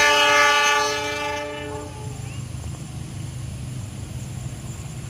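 Passenger train's locomotive horn blowing a long blast that stops about a second and a half in, followed by the steady low rumble of the train running past.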